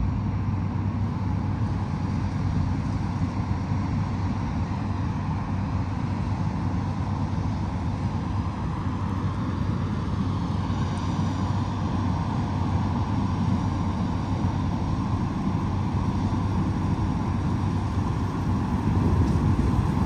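Engine running steadily: a constant low hum under a noisy drone, growing a little louder near the end.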